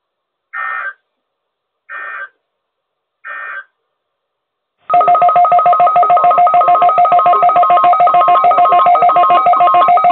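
Three short bursts of digital data tones, the SAME header of a NOAA Weather Radio / Emergency Alert System test, each about half a second long. About a second after the last one, a loud, rapidly pulsing electronic two-tone warning alarm starts and runs on.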